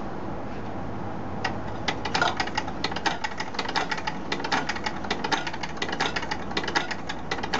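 A mechanical sound automaton clattering: rapid, uneven clicks and taps that start about a second and a half in, over a steady low hum.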